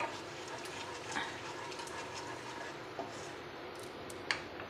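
Panch phoron seeds sizzling in hot mustard oil in a nonstick kadai, a steady frying hiss with a few light clicks and taps.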